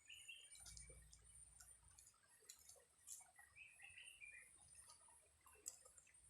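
Near silence: faint outdoor ambience with a steady high hiss, scattered soft ticks and two brief bursts of short high chirps.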